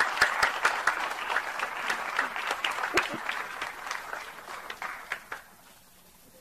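Audience clapping in applause, dying away about five seconds in.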